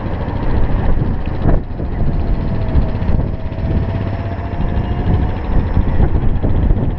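Riding noise from an electric scooter on the move: low wind buffeting on the microphone and road rumble, with a faint steady whine through the middle and a short knock about a second and a half in.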